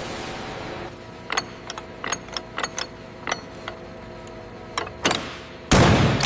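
A fading hiss, then a run of sharp mechanical clicks from hand tools working on metal, then a loud burst of hiss near the end.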